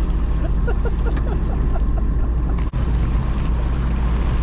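Sea-Doo jet ski engine running at a steady drone on the water. The sound cuts out for an instant about two-thirds of the way through.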